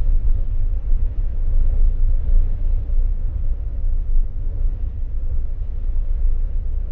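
Deep, steady low rumble with no clear pitch or rhythm.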